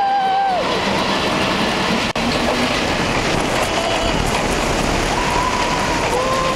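Steel launched roller coaster train running at speed: a steady rumble of wheels on the track with wind rushing past the microphone. Riders let out long held screams near the start and again about five seconds in, two voices overlapping.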